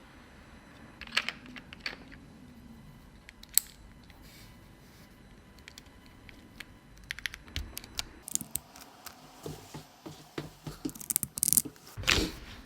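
Handling noises from unboxing a set of clear polycarbonate keycaps: scattered small plastic clicks and rustles of packaging, growing busier toward the end with a few louder swishes.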